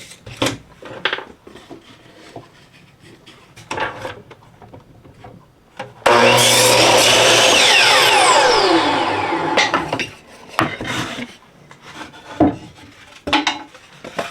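Power saw crosscutting a cedar fence-picket board to length. About six seconds in it starts suddenly and cuts loudly for about three seconds, then winds down in a falling whine. Scattered knocks of boards being handled come before and after the cut.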